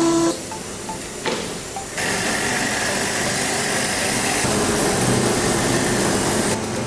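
Production-line machinery running with a steady hissing noise, stepping up louder about two seconds in.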